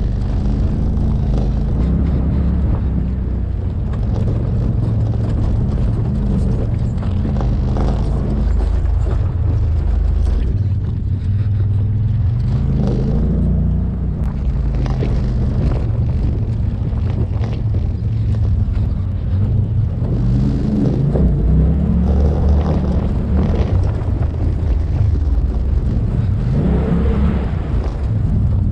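Off-road vehicle's engine running while driving a rough dirt trail, its pitch rising and falling with the throttle, with wind buffeting the microphone.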